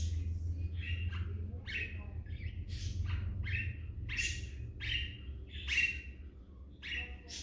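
Lineolated parakeet making a run of short chirping calls, a little under two a second, over a steady low hum.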